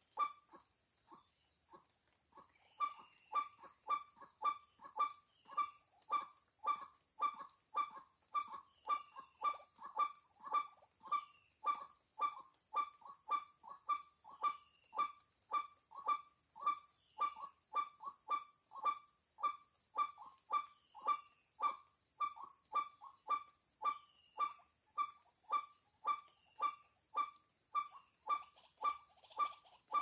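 White-breasted waterhen (ruak-ruak) calling: a hoarse note repeated evenly about twice a second, faint at first and louder from about three seconds in, the lure call used to draw the birds into the snares.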